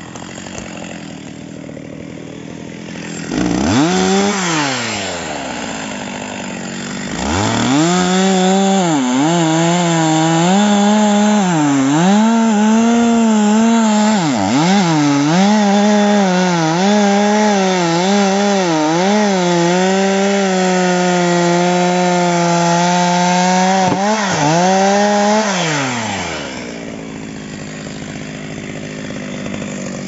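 Two-stroke chainsaw ticking over, revved briefly about three seconds in, then held at full throttle for about twenty seconds while it cuts through a felled pine log. Its pitch dips again and again as the chain bites into the wood, and near the end it drops back to idle as the cut is finished.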